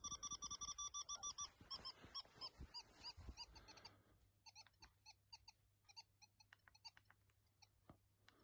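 Nokta Makro Legend metal detector's beeps, heard faintly through a wired earbud held close to the microphone. A fast even run of beeps, about seven a second, stops about a second and a half in, followed by scattered short single beeps, fainter after about four seconds, as its settings are stepped on the keypad.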